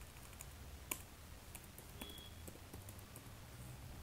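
Faint computer keyboard keystrokes while typing: a few scattered key clicks, the sharpest about a second in.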